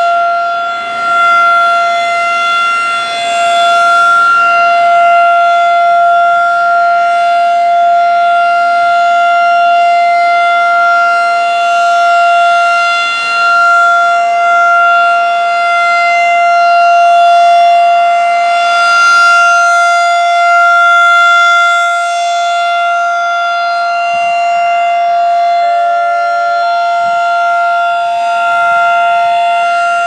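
Federal Signal 2001-SRNB electromechanical outdoor warning siren sounding a steady single-pitch alert tone, its loudness swelling and dipping gently as the rotating horn sweeps around.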